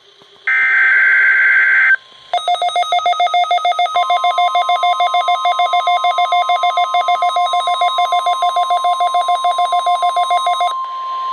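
The last burst of a NOAA Weather Radio SAME alert header (a short digital screech), then a weather alert radio's rapid pulsing alarm starts. About four seconds in, the broadcast's steady one-pitch warning alarm tone joins it, marking the start of a weekly test of the weather radio warning alarm. The pulsing radio alarm stops near the end while the tone carries on.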